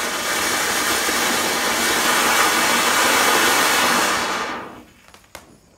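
Ground fountain firework (anar) spraying sparks with a loud, steady hiss that dies away about four and a half seconds in. A single sharp click comes near the end.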